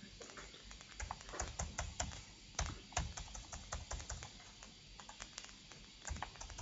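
Computer keyboard keys clicking as digits are typed in, a run of quick irregular keystrokes that thins out after about three seconds.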